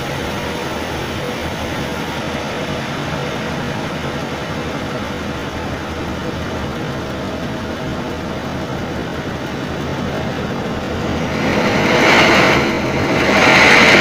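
Sawmill band saw running through a mahogany log with a steady machine noise. Near the end the sound grows louder and higher, dips briefly, then stays loud.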